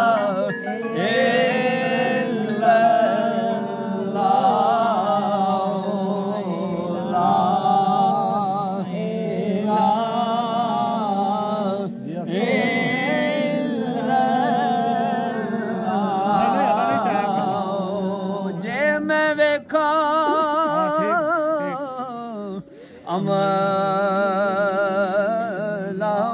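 Mournful Punjabi devotional song: a voice singing long, wavering held notes over a steady low drone.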